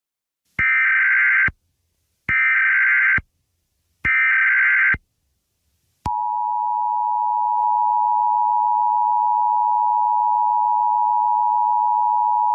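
Emergency Alert System SAME header: three one-second bursts of buzzing digital data tones, a short gap between each. About six seconds in, the steady two-tone EAS attention signal starts and holds.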